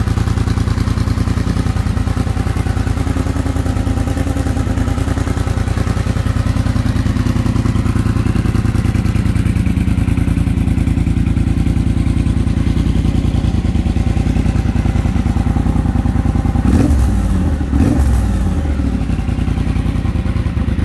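Triumph Bonneville Speedmaster's 1200 cc parallel-twin engine idling steadily, with two quick throttle blips about a second apart near the end.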